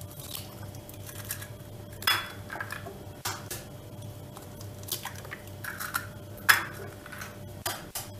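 Raw eggs being cracked against metal hand-mixer beaters and dropped into a plastic mixing bowl: several sharp cracks and taps, the loudest about two seconds in and about six and a half seconds in.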